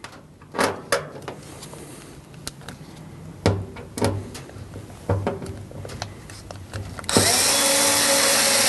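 Several separate plastic clicks and knocks as a tumble dryer's catch cover is handled and pushed into place. About seven seconds in, a loud steady whirr starts, like a power screwdriver running.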